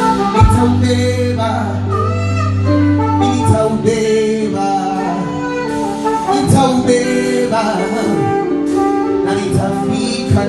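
A live band plays an instrumental passage at a sound check: sustained chords with a melody line and a steady beat.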